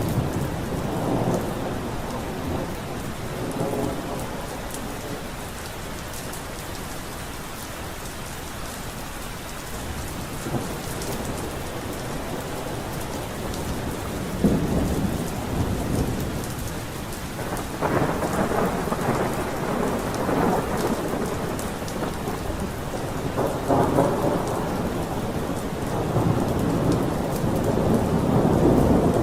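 A thunderstorm: steady rain falling, with rolls of thunder that swell and fade several times, the strongest from about halfway through to the end.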